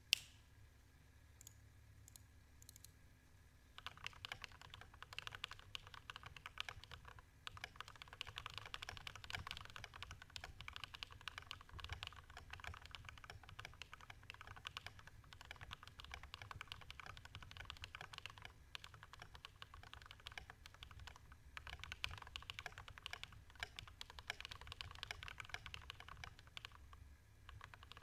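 Typing on a custom Idobao ID80 mechanical keyboard with lubed and filmed Gateron Black Ink V2 linear switches, Durock screw-in stabilisers and case foam. A few light clicks at first, then fast continuous keystrokes from about four seconds in, with short pauses.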